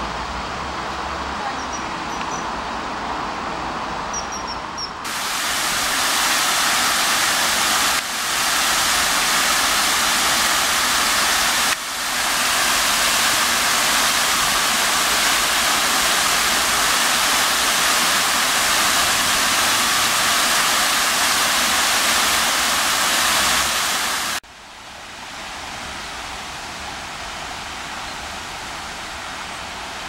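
Loud, steady rush of fountain water spraying and falling into its basin. It cuts in sharply about five seconds in, after quieter open-air riverside sound, and breaks briefly twice. Near the end it drops to a softer, more distant water rush from a tall jet fountain out on the river.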